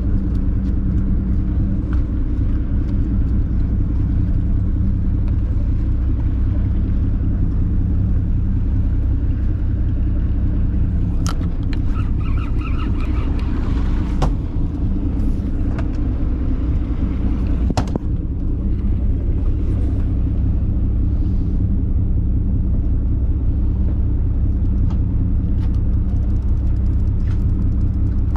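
A party fishing boat's engine running steadily, a low rumble, with a few sharp clicks about halfway through.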